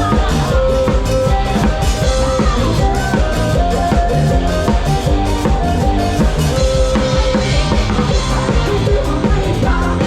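A live band playing an instrumental passage: the drum kit keeps a steady beat of kick and snare under held melody notes and a bass line.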